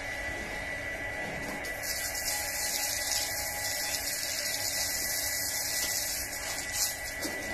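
Water spraying from a garden hose onto concrete: a steady hiss that starts about two seconds in and cuts off shortly before the end.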